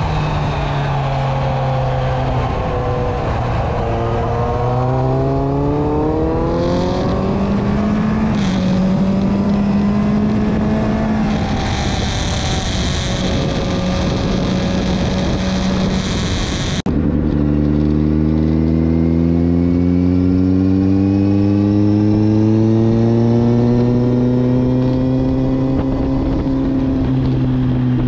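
Kawasaki Z900's inline-four engine at track speed, heard onboard with wind rushing over the microphone. The revs drop, climb again and hold steady. After an abrupt cut about 17 s in they build slowly and ease off slightly near the end.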